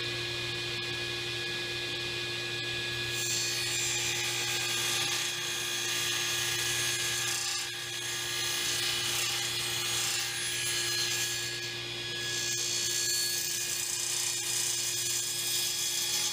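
Table saw running with a steady motor hum and blade whine, its blade trimming the ends of small purpleheart and yellowheart blocks held in a sled jig. The cutting hiss grows denser from about three seconds in as the blocks meet the blade.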